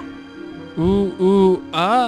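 A person imitating monkey talk with three short hooting calls in the second half, each rising and then falling in pitch, over steady background music.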